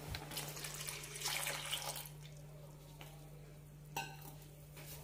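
Milk poured into a pan of just-cooked macaroni and its hot cooking water: a faint pouring and splashing for about two seconds, then quieter, with a light click about four seconds in.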